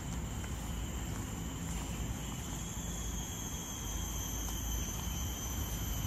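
Steady outdoor ambience: a constant low rumble with a thin, steady high-pitched drone of insects over it.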